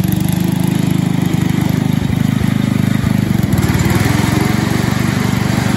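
1981 Montgomery Ward 10-horsepower riding lawn mower engine running steadily as the mower drives across the grass.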